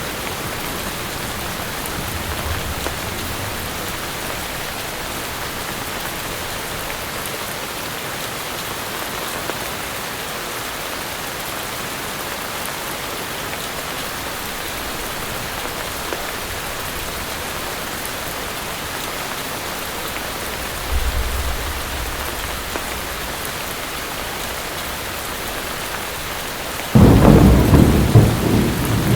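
Steady heavy rain, with low rolls of thunder about two seconds in and again about 21 seconds in. Near the end a sudden, much louder thunderclap breaks and keeps rumbling.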